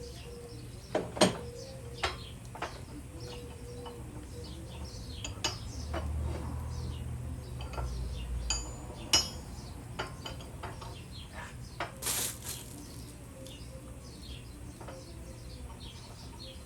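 Scattered clinks and knocks of loose metal pieces being handled, with a sharp strike about a second in and a short rattle around twelve seconds.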